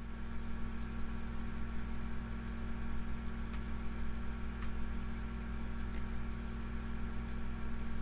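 Steady low electrical hum with hiss, with a few faint clicks.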